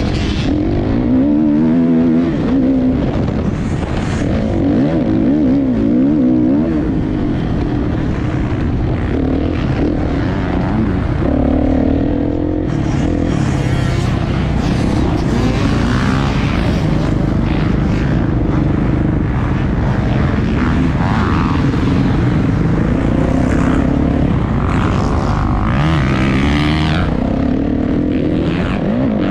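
Motocross dirt bike engine revving up and down over and over as the rider works the throttle around the track, heard from a camera mounted on the bike.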